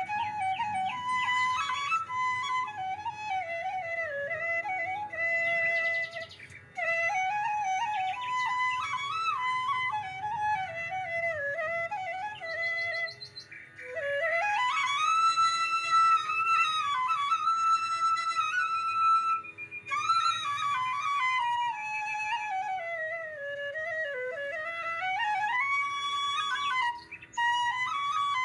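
Background music carried by a single winding melody with sliding notes, pausing briefly twice.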